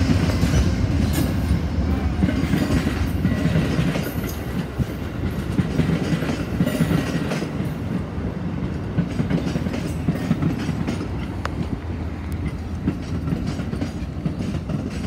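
Amtrak passenger train passing close by. The diesel locomotive's low engine hum fades over the first few seconds, then the passenger cars roll past with a steady rumble and clickety-clack of wheels over the rail joints, slowly growing quieter.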